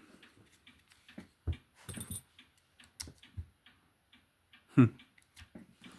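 Small clicks and taps from an Ace padlock and lock-picking tools being handled, with a brief light jingle about two seconds in. About five seconds in, a short pitched voice sound, the loudest thing here.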